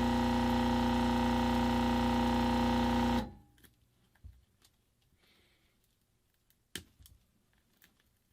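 Hot-air heat gun blowing at maximum airflow with a steady, motor-like hum, switched off about three seconds in. Faint clicks and one sharper tap of handling follow.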